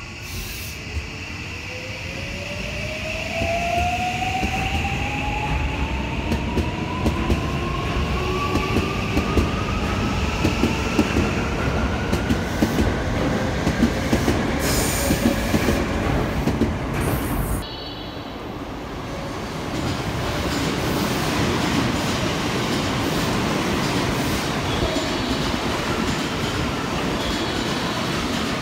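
JR West 323 series electric train pulling away from the platform: its motor whine rises steadily in pitch as it accelerates, over rumble and a running clatter of wheels over rail joints. About two-thirds of the way through, the sound drops abruptly and gives way to the steady running noise of a train passing close by.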